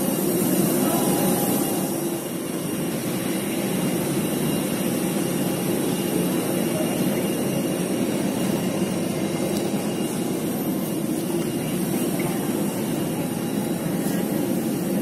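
Steady low roar of jet aircraft engine noise at an airport, with a few faint high whining tones above it.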